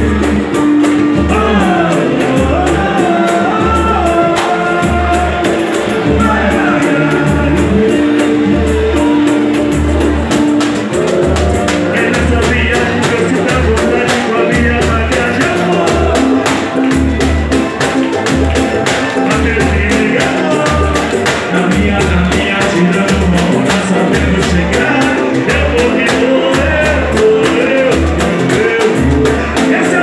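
Live samba-style group: a man sings into a microphone over a steady low drum beat, with small strummed cavaquinhos and hand drums.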